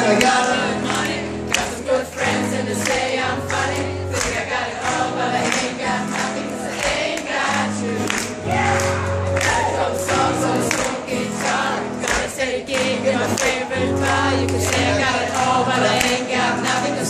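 Live pop-rock song with strummed acoustic guitar and a steady beat, sung by many voices together.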